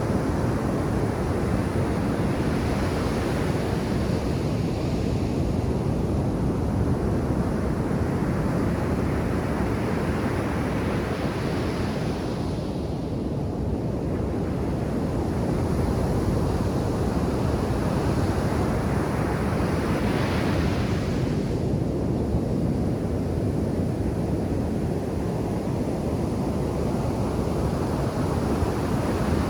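Ocean surf breaking on a sandy beach: a steady low rumble of waves, with the hiss of water washing up swelling three times, with wind on the microphone.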